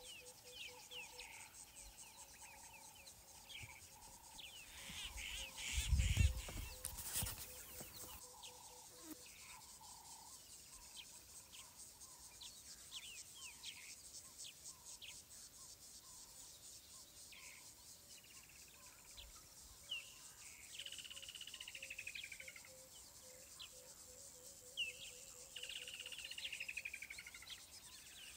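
Bush ambience: insects shrilling on and on in a fast high ticking, with birds chirping throughout and two longer falling calls near the end. A brief low rumble about six seconds in is the loudest moment.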